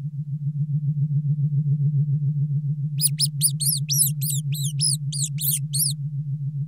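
Synthesizer film score: a low drone that pulses rapidly and steadily. About halfway in, a run of about a dozen high chirps, each falling in pitch, comes about four a second and stops after three seconds.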